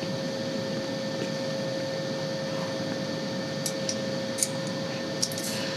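Steady hum of air-handling equipment in a large hangar, with one faint steady tone through it. A few light clicks late on as the compression tester's gauges and fittings are handled at the cylinder.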